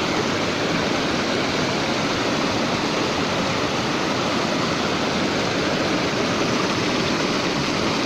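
River water rushing steadily, a loud, even, unbroken noise.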